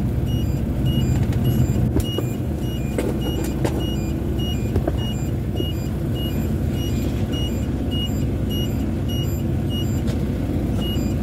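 Log truck running with a steady low rumble of engine and road noise, with a faint high beep repeating about twice a second.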